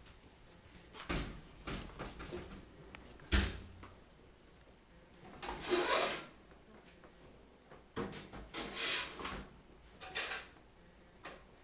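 Scattered knocks and rustling noises, with a sharp bump about three seconds in and two longer hissing rustles later on.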